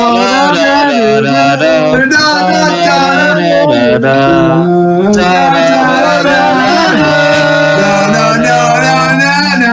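Music with several pitched parts held and changing together, with some singing in it.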